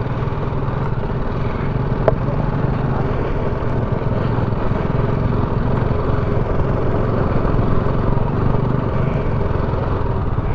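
An engine running steadily, a continuous low drone.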